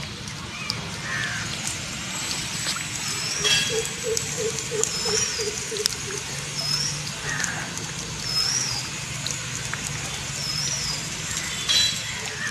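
Birds calling outdoors: a short high chirp repeated about once a second, and for a couple of seconds a quick run of about eight low notes, over a steady low hum.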